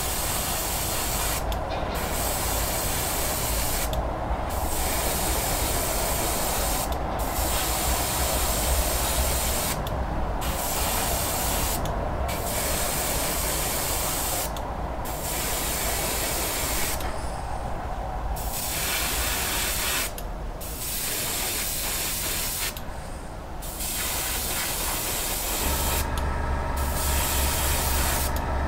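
Airbrush spraying paint: a steady hiss, broken by short pauses every two to three seconds. A low steady hum comes in near the end.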